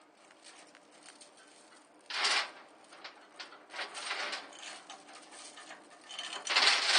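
Ratchet dog and load chain being handled: scattered light clicks and rattles, with a short rattling burst about two seconds in and a louder, longer one near the end.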